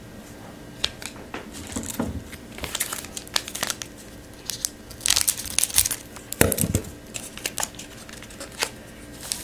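Foil trading-card pack wrapper being torn open and crinkled by hand, in irregular rustling spurts, the loudest stretch about five to six seconds in.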